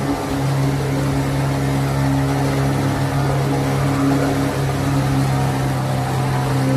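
Tour boat's engine running at a steady pace, a constant low drone with water noise over it.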